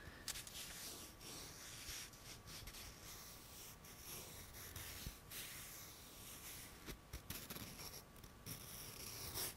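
Close-miked scratching and rubbing on an object's surface: a continuous gritty scraping dotted with small clicks.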